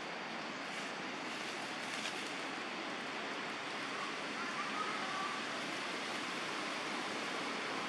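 Steady rushing noise of outdoor ambience, with a faint short high tone about four seconds in.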